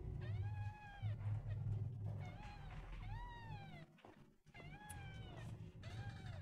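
Newborn kittens mewing: about five high, thin cries, each rising and then falling, over a continuous low rumble.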